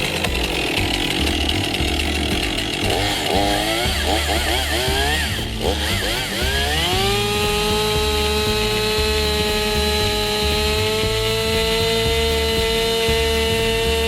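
Two-stroke chainsaw running, its engine speed wavering up and down, then rising about seven seconds in to a steady high-revving whine that holds to the end.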